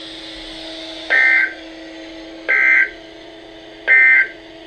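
NOAA Weather Radio's SAME digital code sounding as the end-of-message signal that closes the severe thunderstorm warning: three short, buzzy two-tone data bursts, each about a third of a second long and about 1.4 s apart. A steady low hum runs underneath.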